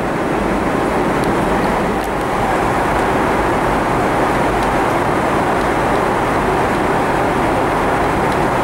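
Steady, even rush of airliner cabin noise inside a Boeing 777-300ER in cruise flight: the airflow and engine noise that fills the cabin, with no separate events standing out.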